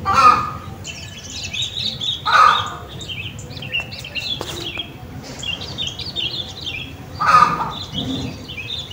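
Garden birdsong: small birds chirping and twittering continuously, with three louder, harsher calls from a larger bird, one right at the start, one about two and a half seconds in, and one about seven seconds in.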